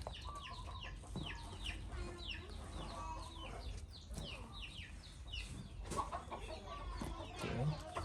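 Animal calls: a rapid series of short, high, falling chirps, several a second, mixed with lower, wavering calls.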